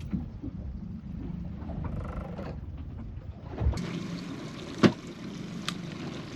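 A small fishing boat at sea: a steady low hum with water sounds around the hull, and one sharp knock about five seconds in, followed by a lighter click.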